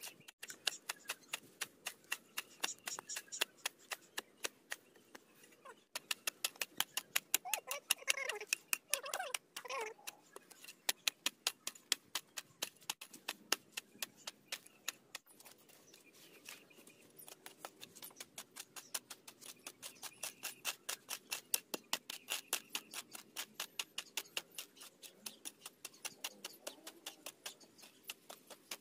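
Rapid, regular clicking strokes, about four to six a second, pausing briefly a couple of times. A short wavering voice-like sound rises over them about eight to ten seconds in.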